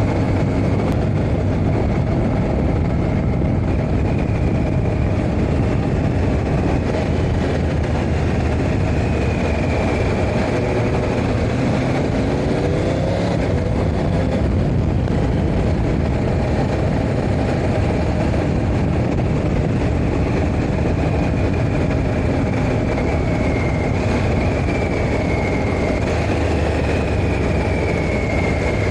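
Triumph Tiger 1200 Rally Explorer's three-cylinder engine running as the motorcycle rides at a steady speed, with road and rushing noise. Its note rises briefly about twelve seconds in.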